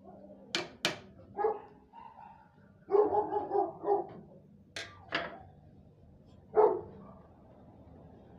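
A dog barking in short calls, with a quick run of barks a few seconds in, and a few sharp clicks in between.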